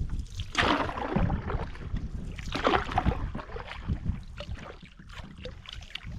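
Canoe paddle strokes swishing through the water, two of them about two seconds apart, over wind rumbling on the microphone.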